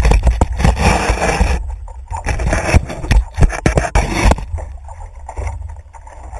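Water splashing and sloshing at the nose of a paddleboard, with sharp knocks and scrapes on the board close by; it is loudest for the first four seconds or so, then settles to quieter lapping water.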